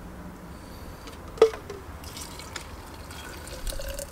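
Liquid poured from a can into a plastic jug, splashing and dripping, with a short tone as the jug fills near the end. A single sharp knock about a second and a half in is the loudest sound.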